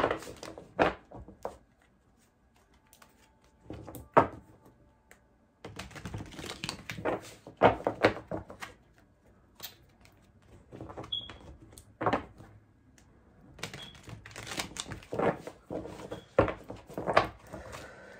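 Tarot cards shuffled and handled by hand: bursts of quick papery slaps and flicks with short pauses between.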